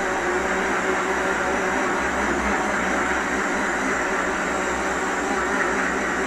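Electric kitchen blender running steadily, blending frozen avocado with milk into a thick smoothie.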